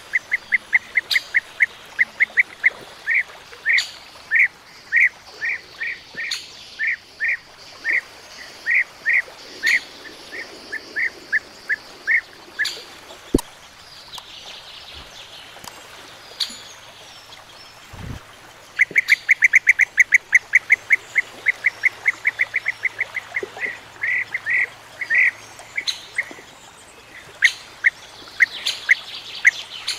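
European bee-eaters calling: a rapid series of short, rolling calls, several a second. The calls pause for several seconds about halfway through, then resume more densely.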